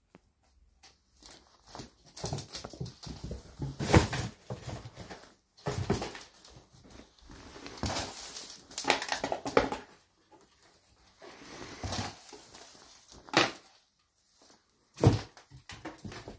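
A cat scrabbling and pouncing in a cardboard box: irregular rustling and scratching of cardboard broken by several sharp thumps and knocks.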